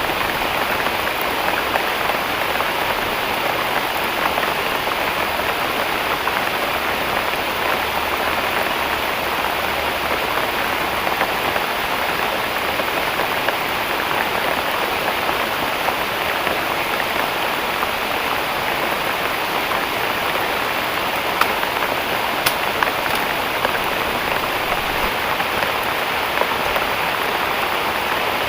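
Heavy rain falling steadily, a dense even hiss, with a few sharp drop hits standing out about three quarters of the way through.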